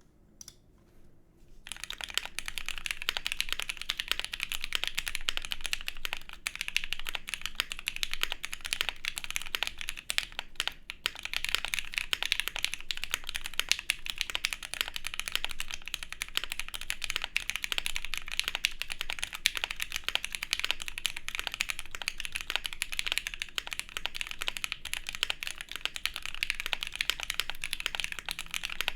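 Fast, continuous typing on a gasket-mounted custom mechanical keyboard with Gateron Black Ink v2 linear switches, a POM plate and GMK keycaps, making a steady stream of keystroke clacks. The typing starts about a second and a half in and pauses briefly about ten seconds in.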